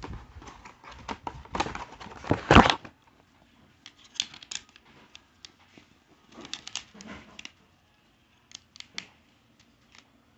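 Hands handling a plastic game controller and a thin plastic packaging tray: a dense run of plastic clicks and rustling about two seconds in, then short scattered groups of clicks.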